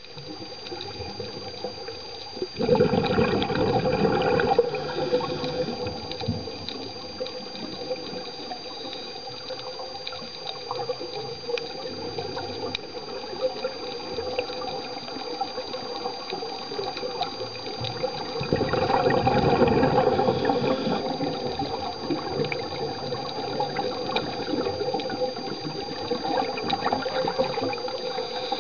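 Underwater sound of scuba regulator breathing: exhaled bubbles gurgling and rushing past the camera, surging loudly twice, about three seconds in and again around nineteen seconds in, over a thin steady high whine.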